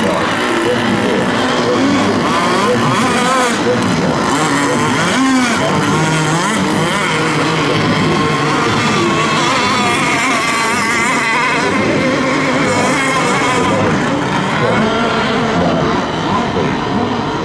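Several radio-controlled racing boats' motors running at high revs together, their overlapping pitches wavering up and down as the boats race.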